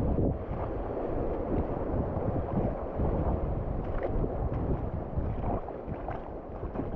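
Wind buffeting the microphone over the wash of small waves running across a shallow rocky reef flat, a steady rough noise with no pitch.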